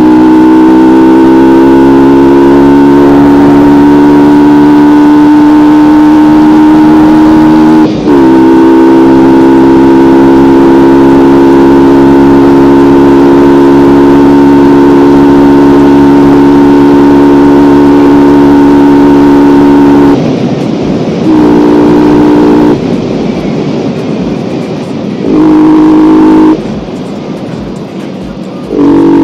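Yamaha R15 V2's single-cylinder four-stroke engine running loud under throttle while riding, its note climbing slowly, with a brief break and change of pitch about eight seconds in like a gear change. In the last third the throttle is closed and opened several times, the engine note dropping away to road and wind rush and coming back.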